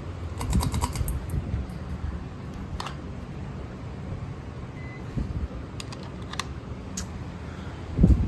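Several ceiling fans running with a steady low hum. Sharp clicks cut across it: a quick cluster about half a second in, one near three seconds and a few more around six seconds. A loud low thump comes just before the end.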